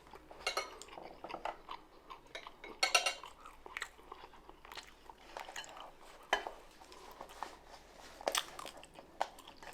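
A person chewing and crunching crispy fried food close to the microphone, with irregular crunches, wet mouth clicks and smacking, and a loud crunch about three seconds in.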